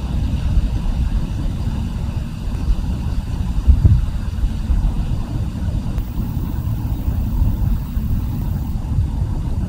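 Low, uneven rumbling noise with a brief louder thump about four seconds in.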